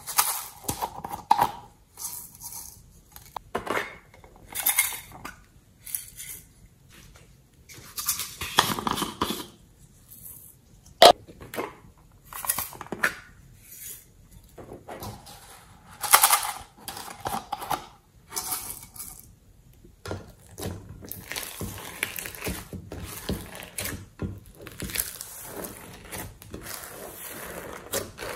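Glitter and sequins shaken from small plastic containers onto slime in a glass dish, in short rattling, pattering bursts with clinks and taps against the glass and one sharp click about eleven seconds in. From about two-thirds of the way through, hands mix and squish the slime with a steady soft crackling.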